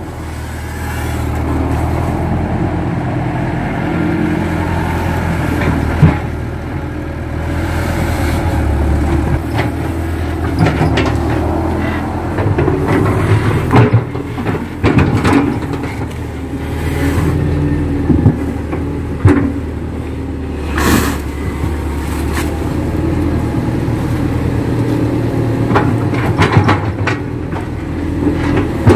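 Kato crawler excavator's diesel engine running under digging load, its level rising and falling as the arm works. Several sharp knocks and clanks from the bucket and arm come at irregular moments.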